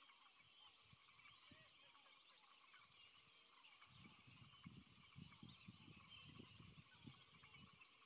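Faint marsh ambience at dawn: a dense background chorus of distant small chirping calls. About halfway through, a run of low, irregular pulses joins in.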